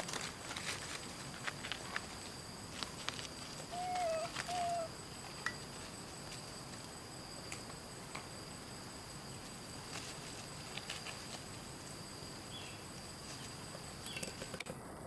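Insects droning steadily in two high tones, with scattered light clicks and rustles of young macaques moving over dry leaves. Two short arched calls sound about four seconds in.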